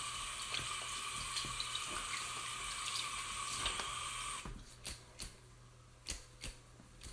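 Tap water running into a sink during hand washing, which stops suddenly about four seconds in as the tap is turned off, leaving a few short drips.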